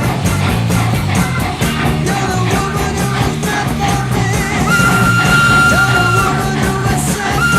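Loud rock music with a steady beat, and a long held high note about five seconds in.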